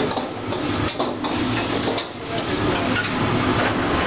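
Stir-frying in a wok: a metal ladle knocking and scraping against the steel wok in several sharp clanks, over the steady hiss of food frying on a gas wok burner.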